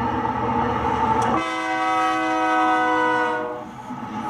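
A diesel locomotive horn sounds one long blast of about two seconds, starting about a second and a half in, between stretches of steady locomotive and rail running noise.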